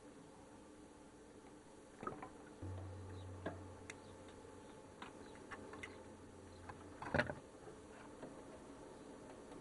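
Scattered light clicks and taps, with a low hum that comes in about two and a half seconds in and fades away, and a louder clatter a little past seven seconds.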